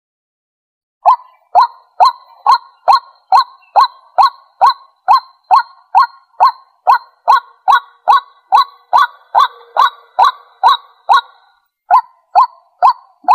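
White-breasted waterhen calling: a long run of short, evenly spaced notes, about two a second, starting about a second in and breaking off briefly near the end before resuming. This is its territorial call.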